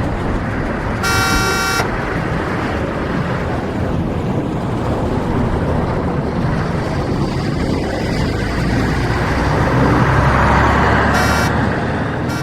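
Dense city street traffic: a steady wash of engines and tyres, with a car horn sounding briefly about a second in and again, shorter, near the end. A low engine rumble swells just before the second honk.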